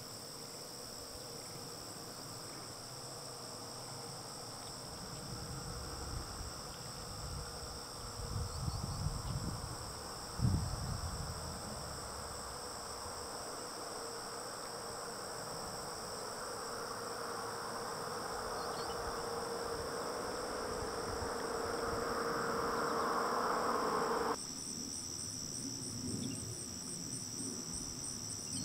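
Steady high-pitched chorus of crickets and other insects. A few low rumbles come about a third of the way in, and a low hum swells and then cuts off abruptly about four seconds before the end, after which the insect sound becomes quick, regular chirping pulses.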